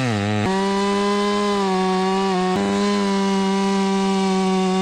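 Chainsaw cutting into a tree trunk at full throttle. The engine bogs down under load right at the start, picks back up to a steady high pitch about half a second in, and dips briefly once more midway.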